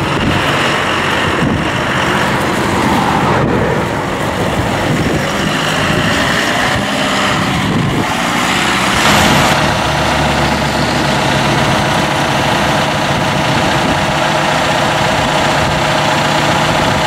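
John Deere 5100M's turbocharged four-cylinder diesel running as the tractor drives, then running at a steady speed from about halfway through.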